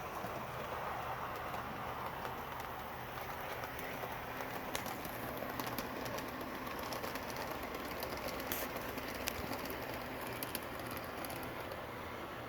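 A train running on its track: a steady rolling noise with scattered clicks of the wheels over the rails through the middle stretch.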